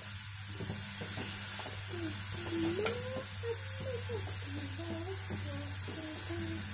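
Steel spoon stirring grated carrots frying in an aluminium kadai, with light scrapes and clicks, most of them in the first two seconds. A steady hiss and low hum run underneath.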